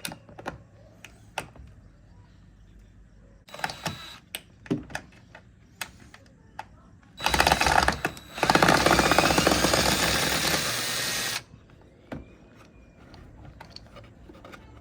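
Drill driving a screw through an angled bit attachment: a few light clicks and knocks as the bit is set onto the screw, then the drill runs for a short burst, pauses, and runs steadily for about three seconds before stopping suddenly.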